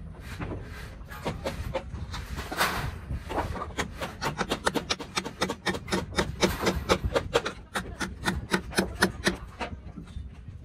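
Claw hammer striking a timber formwork box: scattered knocks at first, then from about four seconds in a quick run of light, rapid blows, several a second, that stops shortly before the end.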